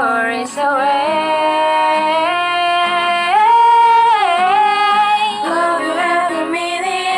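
Female voice singing a wordless, drawn-out passage: long held notes that slide up and down in pitch.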